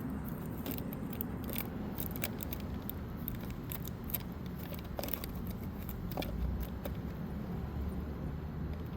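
Scattered light clicks and scrapes of small objects being handled, over a steady low rumble.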